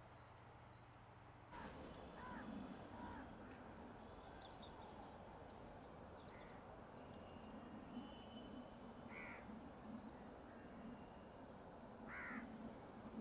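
Crows cawing faintly a few times over a quiet background hiss: a couple of calls about two seconds in, one around nine seconds and one near the end.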